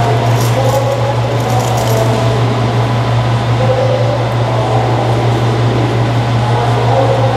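Steady low mechanical hum, with faint running noise from a blue JR Kyushu 883 series Sonic electric train pulling away.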